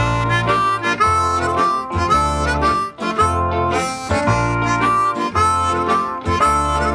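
Background instrumental music: a held, reedy melody over low bass notes that come back about once a second.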